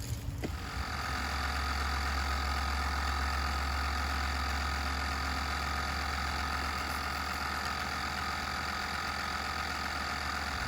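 Air compressor running steadily with a constant motor hum and whine, inflating a freshly plugged car tire; it starts about half a second in and cuts off at the end.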